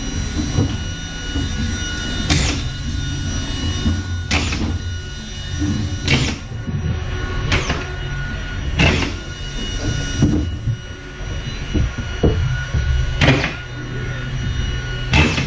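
Drywall sheet being fastened to the stud framing: about seven sharp, brief strikes or fastener shots, roughly every one and a half to two seconds, with a longer gap about two-thirds of the way through.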